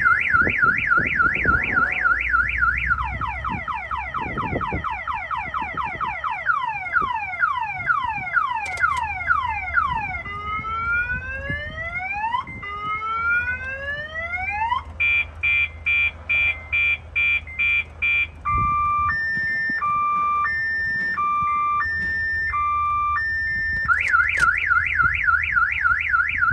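Honda Civic's car alarm siren going off, cycling through its tones: a fast warble, a run of falling sweeps, rising whoops, rapid pulsing beeps, a slow two-tone high-low, then the fast warble again near the end. The alarm is tripped while the ignition is being worked on, and the car won't start; it is suspected of interfering with starting.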